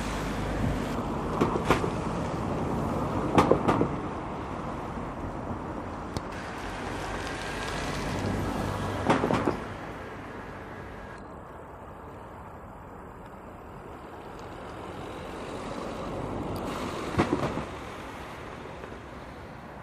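Road traffic passing: a steady rush that swells and fades slowly, with a few sharp knocks.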